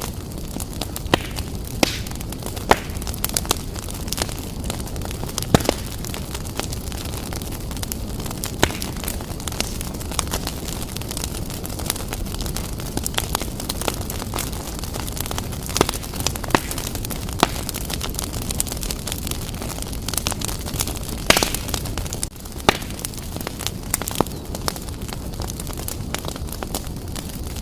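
Wood fire burning vigorously in a fireplace: a steady rushing noise with frequent, irregular crackles and sharp pops of burning wood, a few of them louder than the rest.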